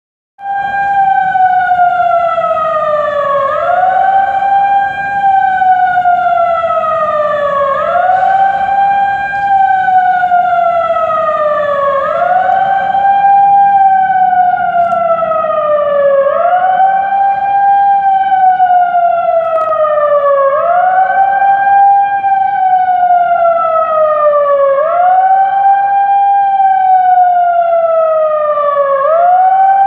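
TOA electronic siren wailing loudly. Its tone rises quickly, then falls slowly, repeating about every four seconds.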